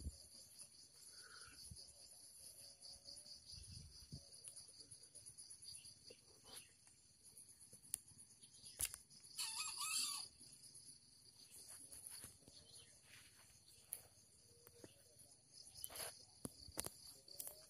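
Steady high drone of insects in the undergrowth, with one short wild junglefowl crow about halfway through and a few faint rustles and clicks.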